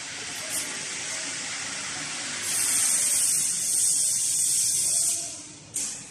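Steady hissing noise that grows louder about two and a half seconds in, holds for nearly three seconds, then dies away, with a brief sharp hiss near the end.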